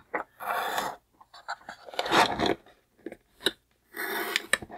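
Cardboard and plastic toy packaging being handled and the tape on it cut: three short bursts of scraping and rustling, with a few sharp clicks in between.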